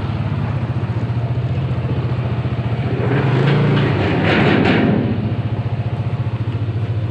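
Vespa scooter engine running steadily, with a louder, noisier stretch about three to five seconds in.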